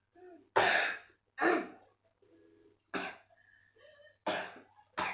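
A child with a cough and cold coughing about five times in a row; the first two coughs are the loudest.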